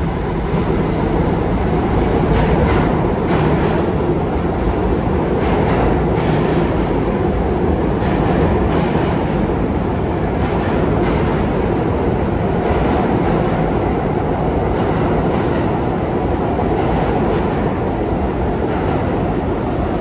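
A New York City subway train of R68-series cars running along the track with a loud steady rumble and repeated clicks of the wheels over rail joints.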